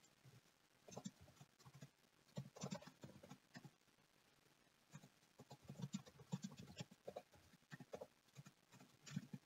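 Faint typing on a computer keyboard: quick clusters of key clicks in several short bursts, with pauses between them.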